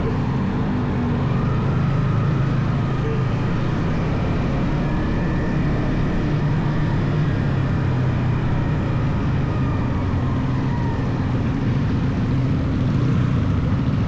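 Yamaha XSR 155's stock single-cylinder four-stroke engine running steadily under way, a continuous low drone over wind and road noise.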